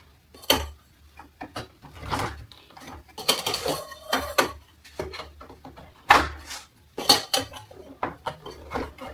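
Steel parts of a clothes drying rack knocking, clattering and scraping against each other as pieces are fitted together, in irregular clanks with several sharper knocks.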